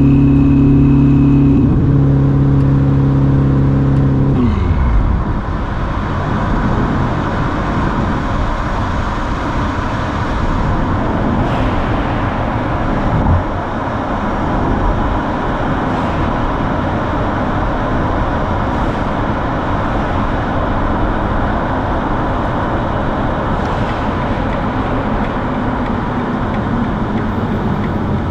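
Ferrari SF90's twin-turbo V8 with a Novitec sport exhaust, heard from inside the cabin, holding a steady note. About four seconds in its pitch drops away and the note dies. After that only tyre and road noise of the moving car is heard, with one brief thump about thirteen seconds in.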